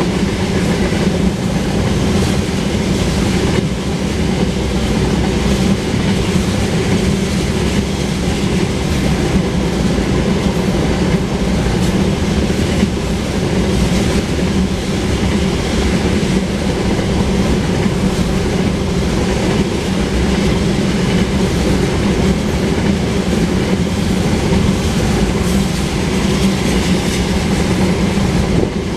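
Loaded oil tank cars of a freight train rolling past: a steady, loud run of steel wheels on the rails with clickety-clack over the rail joints.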